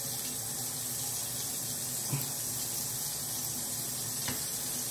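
Bathroom sink faucet running, a steady stream of water splashing into the basin.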